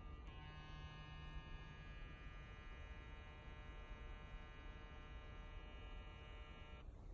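StyleCraft Instinct cordless hair clipper running with a steady, many-toned electric buzz. Its tone changes about a third of a second in, and it switches off abruptly near the end.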